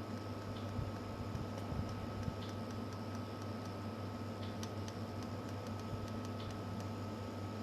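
Steady electrical hum with a thin high tone, and scattered light ticks as metal test-probe tips touch the pins of a graphics card's connector. The ticks are thickest in the middle.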